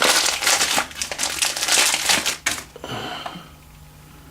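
Packaging being crinkled and crumpled as a new fly cutter is unwrapped: dense crackling for about two and a half seconds, then it dies down to a few faint rustles.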